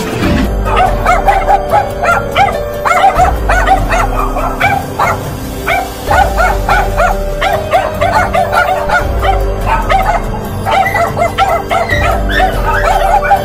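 A dog barking and yelping in fast, repeated yips, over music with a low pulsing beat and a held drone.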